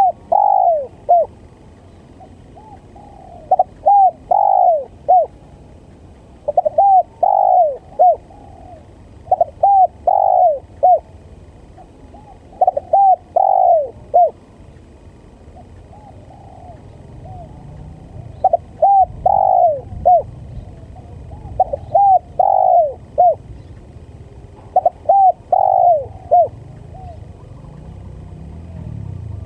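Spotted dove (tekukur) cooing: about eight short phrases of three to four notes each, repeated every three seconds or so, with a longer pause in the middle. This is the male's call used as a lure (pancingan) to draw in wild doves. A low rumble grows underneath in the second half.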